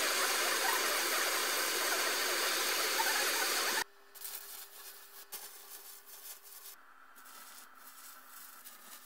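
Gas torch flame hissing steadily as it heats a steel tube, stopping abruptly a little under four seconds in. After that comes a much quieter stretch of irregular crackle and clicks from arc welding, with a faint steady hum.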